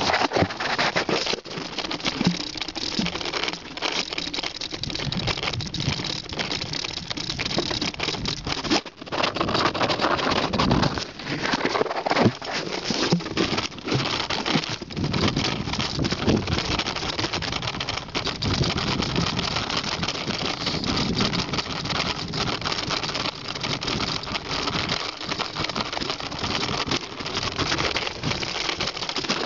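Bicycle rolling over a rough, uneven stone-paved path, the bike and the hand-held camera rattling and clattering without a break.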